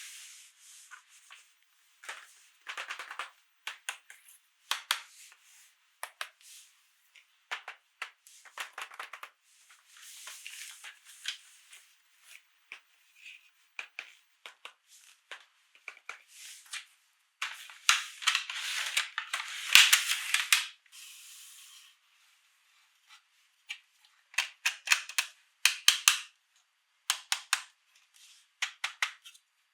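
Close-miked clicks, taps and rustling of toys and packaging being handled during an unboxing, with a louder, denser stretch of rustling a little past the middle.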